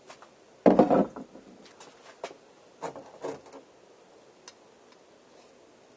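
Bicycle parts and tools being handled on a workbench: a solid knock about a second in, a few light clicks, then two shorter clunks around three seconds in.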